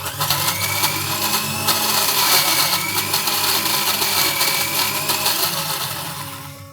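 Electric mixer grinder running, grinding shallots, dried red chillies, tamarind and salt into a chutney: a loud steady motor whine that starts suddenly and winds down near the end.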